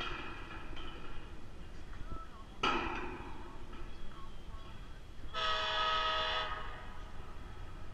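A diesel locomotive's air horn sounding a chord of several tones: a short blast about two and a half seconds in, then a longer blast of about a second just past five seconds, over a low rumble.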